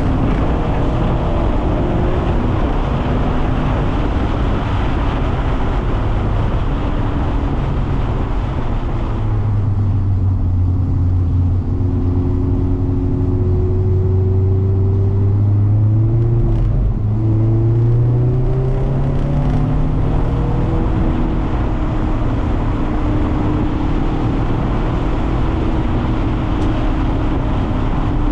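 Mazda MX-5 (ND) four-cylinder engine heard from inside the car, its note climbing and falling with throttle and gear changes. Under it runs a steady hiss of wet tyres and spray, which eases for a stretch in the middle while the engine pulls harder.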